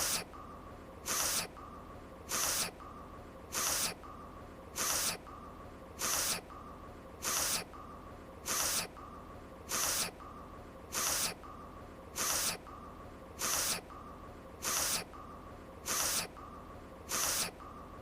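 A woman's sniffle: a short, sharp sniff through the nose, repeated as a loop about once every 1.2 seconds.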